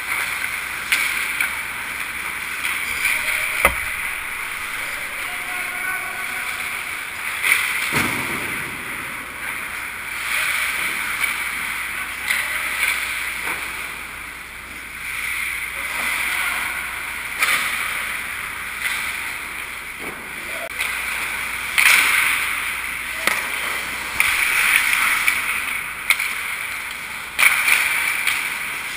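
Hockey skate blades scraping and carving on rink ice, with a few sharp knocks from sticks and puck scattered through.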